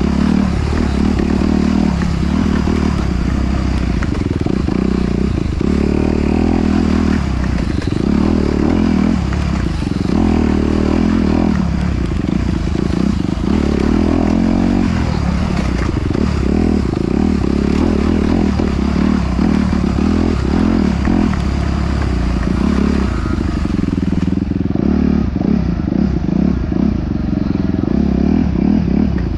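Off-road motorcycle engine running under constantly changing throttle, rising and falling every second or two.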